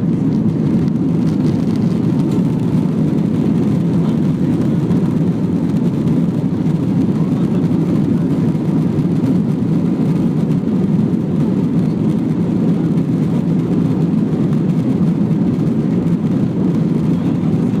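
Airbus A321 cabin noise heard from inside: a loud, steady, even rumble of the engines and machinery, with no change in level.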